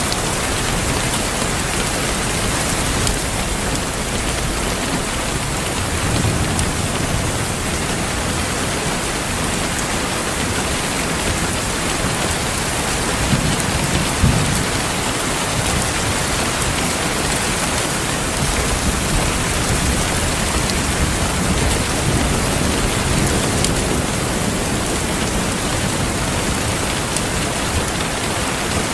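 Steady rain falling, with low rolling thunder rumbling underneath several times, strongest about halfway through.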